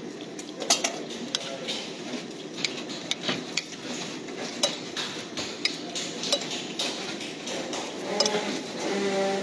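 A metal spoon clinking and scraping against a plate of rice as someone eats, in irregular sharp clicks over steady background noise.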